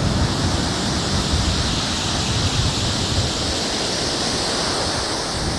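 Surf breaking and washing on a shingle beach, a steady hiss, with wind buffeting the microphone as a low, uneven rumble.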